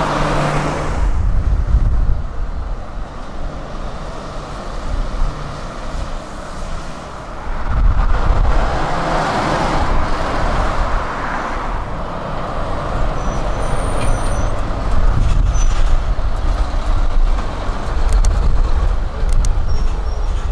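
Renault diesel lorries driving past on the road with other traffic: a steady low engine rumble and tyre noise that swells as each lorry goes by, loudest about eight to eleven seconds in.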